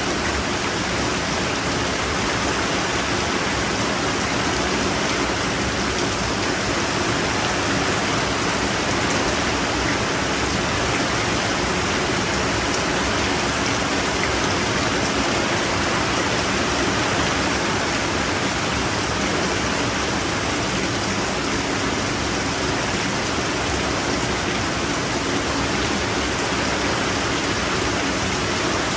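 Steady, heavy rainfall: an even, unbroken hiss of rain with no distinct drops standing out.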